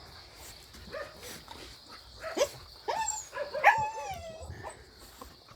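Jindo dogs whining and yelping, with a short yelp about two seconds in and one longer whine near the middle that slides down in pitch.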